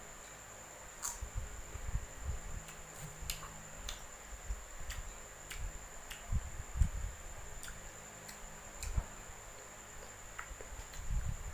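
Close-up chewing of crunchy unripe green mango: scattered crisp crunches and clicks with soft low thumps.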